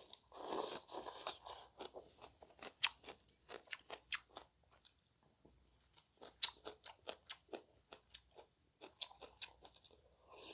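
Close-miked eating: crunching bites and chewing, with many sharp mouth clicks coming in runs and a short lull about halfway.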